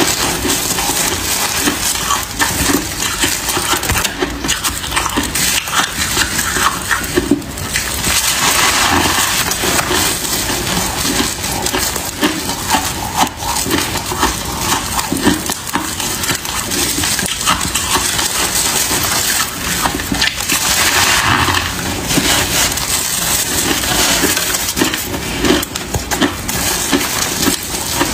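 Freezer frost crunching and crackling as it is squeezed and packed between plastic-gloved hands, a dense run of small crackles close to the microphone.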